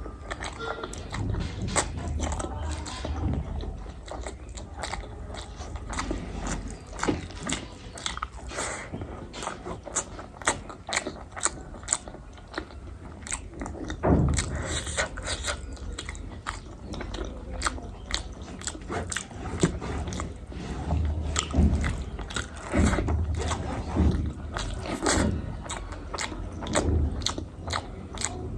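A person eating close to the microphone: chewing and biting, with many irregular wet mouth clicks and occasional crunches, through a meal of spicy boiled eggs.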